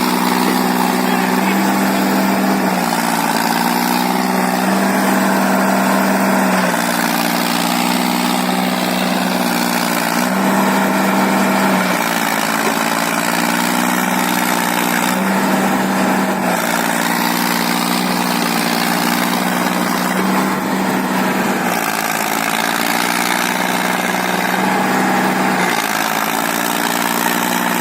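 Diesel tractor engines of a Sonalika and a Mahindra Arjun straining in a tractor tug-of-war. The engine note holds steady but shifts up and down in pitch every couple of seconds as the load changes.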